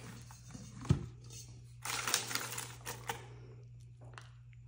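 A sharp click about a second in, then a couple of seconds of rapid crinkling and clicking from plastic-sleeved freezer pops being lifted out of an insulated bowl, fading out near the end.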